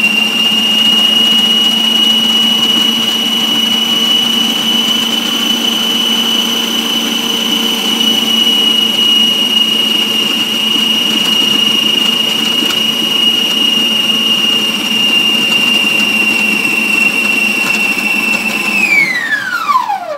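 Electric stand mixer's motor kneading pizza dough, running very loud with a steady high whine. Near the end it winds down, the whine falling in pitch until it stops.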